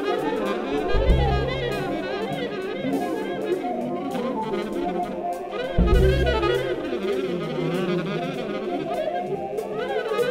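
Jazz septet playing, with saxophone and brass carrying a winding melodic line over drums and bass. Two heavy low accents fall about a second in and again near six seconds.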